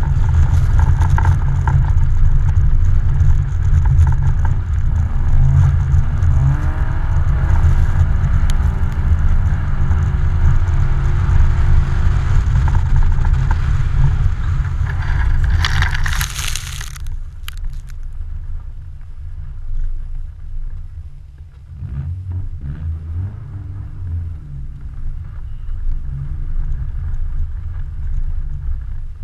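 Car engine running and revving up and down as the car slides on snow-covered ice, heard through a microphone mounted on the outside of the car with a heavy low rumble of wind and tyre noise. A loud rushing hiss about sixteen seconds in, after which the sound drops to a quieter rumble.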